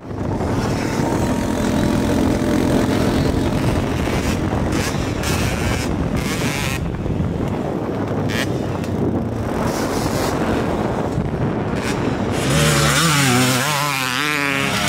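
Motocross dirt bike engines running hard around the track, revving up and down. About 12 seconds in a closer bike gets louder, its pitch wavering quickly up and down as the throttle is worked.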